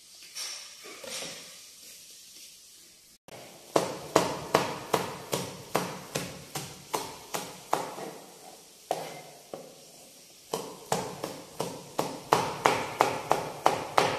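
Chef's knife chopping green chillies on a plastic cutting board: sharp, regular knocks of the blade against the board, about three a second, starting about three seconds in, with a brief pause about two-thirds through.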